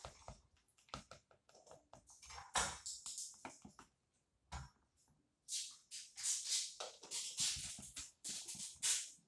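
PVA glue tinted with food colouring being squished and stirred by hand in a plastic bowl, making sticky squishing sounds in irregular bursts. There is a short pause with a dull knock about halfway.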